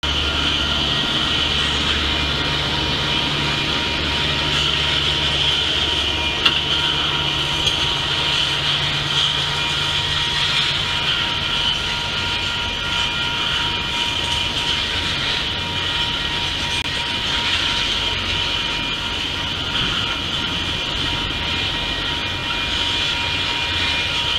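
Refrigerated boxcars of a long freight train rolling past: a steady wheel-on-rail rush with thin steady tones over it and a low hum that fades about halfway through.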